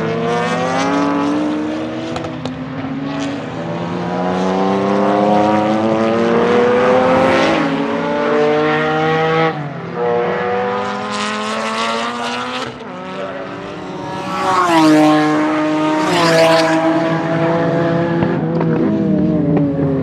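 Race car engine accelerating hard, among them a widebody Honda NSX time attack car, heard trackside. The pitch climbs steadily, drops sharply about nine and a half and thirteen seconds in, then climbs again. The loudest pass comes around fifteen seconds in.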